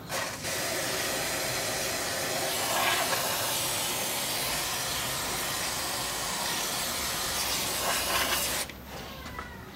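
Aerosol can of carburettor cleaner spraying through its straw in one long, steady hiss, washing oil off a rear differential housing; it cuts off abruptly about a second before the end.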